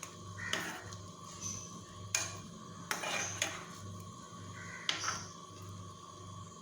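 A spoon stirring banana pieces in milk in a kadai, scraping and knocking against the pan in a string of short clatters.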